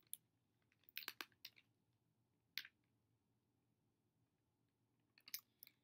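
Snack packaging being handled: a few faint, scattered clicks and crinkles, a small cluster about a second in and a couple more near the end, with near silence between.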